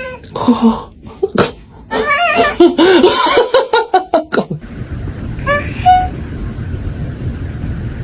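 A rapid run of short, wavering squeaky calls mixed with clicks, then, over a steady hiss, one short cat meow about five and a half seconds in.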